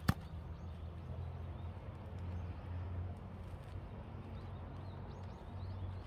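A single sharp click right at the start, then a steady low hum with a few faint high chirps.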